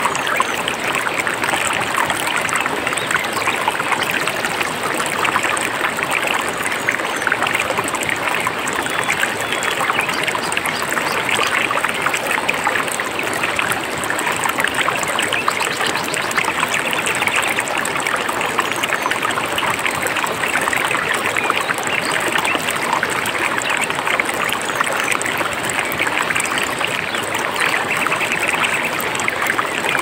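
Mountain stream flowing, a steady splashing rush of water.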